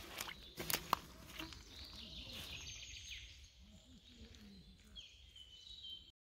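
Faint deciduous-forest ambience: a few short, thin, high bird calls over a quiet background, with a handful of sharp clicks and crackles in the first second. The sound cuts off abruptly just before the end.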